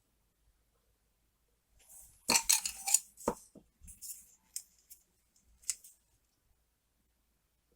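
Small sharp clicks and taps from handling a model locomotive's small metal parts at a workbench: a quick rattle of clicks about two seconds in, one more click a little after, then scattered faint ticks.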